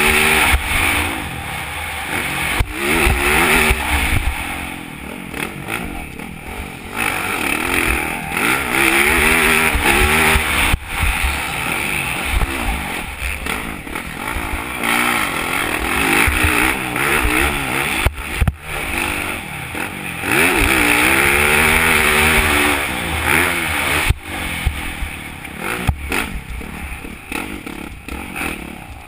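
Motocross bike engine revving hard and falling off again and again as the rider accelerates, shifts and brakes around the track, with a few sharp knocks from the bike over the bumps.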